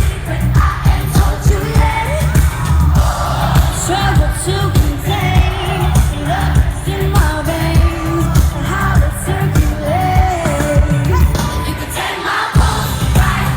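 Live pop concert: a female vocal group singing over a loud backing band with heavy bass, heard from the audience. The bass drops out briefly near the end.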